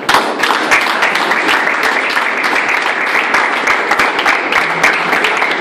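A small group of people applauding, with fast, dense clapping.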